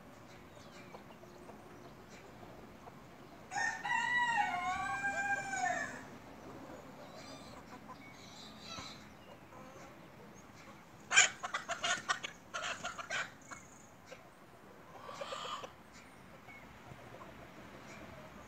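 Bantam rooster crowing once, a high-pitched crow of about two and a half seconds a few seconds in. About halfway through comes a quick run of clucking calls, and a short cluck near the end.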